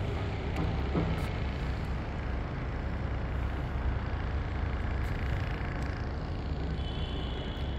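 Steady low rumble of outdoor city ambience with wind buffeting the microphone, and a short high tone near the end.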